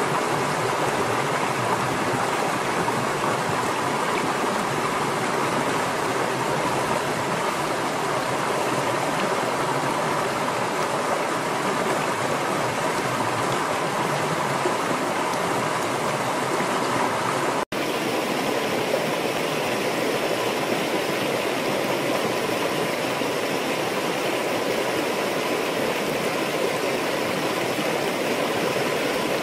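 River water rushing steadily over rocks in a shallow rapid, an even continuous noise that drops out for an instant a little past halfway.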